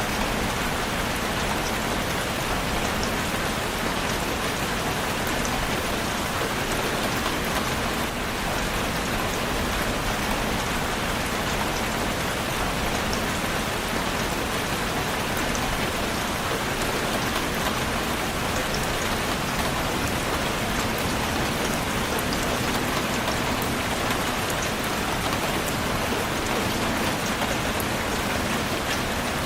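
Steady, even rain falling and pattering on surfaces, with scattered faint drop ticks.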